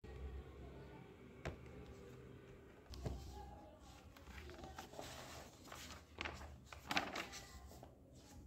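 Faint room tone with a few light knocks and clicks, the loudest about seven seconds in.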